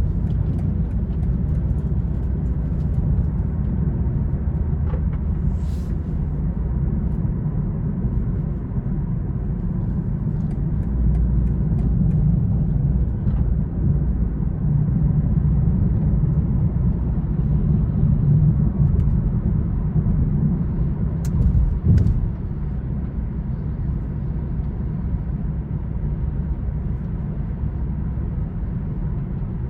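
2020 BMW M340i xDrive driving, a steady low rumble of engine and tyre noise heard from inside the cabin, with a single brief knock a little past two-thirds of the way through.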